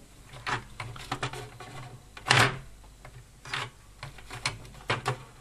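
Scattered clicks, taps and short scrapes as an electric heater's circuit board is handled and settled in its plastic housing by hand, the loudest a little over two seconds in.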